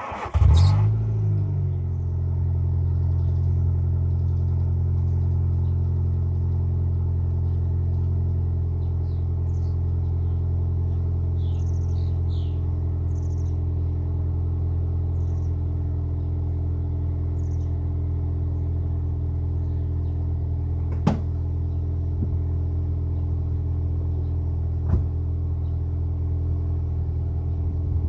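Nissan Primera P11's 1.6 16-valve four-cylinder petrol engine, heard at the exhaust tailpipe: it starts up, the revs flare briefly, and it settles into a steady idle. Two sharp clicks sound later on.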